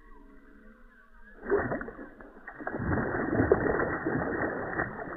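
A hooked rohu fish thrashing and splashing at the water's surface as it is played on a rod. The splashing starts suddenly about a second and a half in with a loud splash and goes on as an irregular run of splashes.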